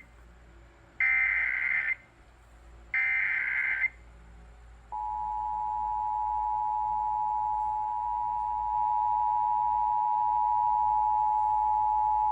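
Emergency Alert System test signal: two bursts of SAME header data tones, each about a second long and a second apart, then about five seconds in the steady two-tone EAS attention signal (853 and 960 Hz) begins.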